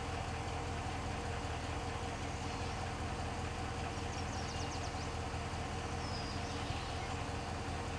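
Vehicle engine idling with a steady low hum. A bird's quick high trill comes about four seconds in, with a short whistle a couple of seconds later.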